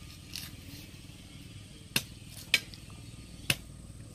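A large knife chopping into the top of a green coconut: three sharp chops in the second half, the first two close together.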